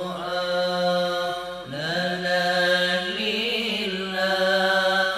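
A man singing an Arabic sholawat (Islamic devotional song) in a slow, drawn-out style, holding each syllable as a long, ornamented note. There is a brief break about a second and a half in.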